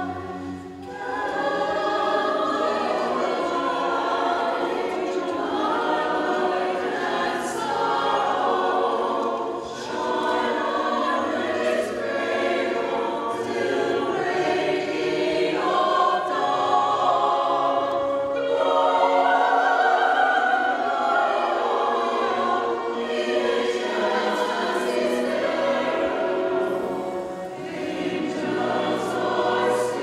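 Mixed choir of men and women singing in harmony with a small string ensemble of violins, with short breaks between phrases about half a second in and again near ten seconds.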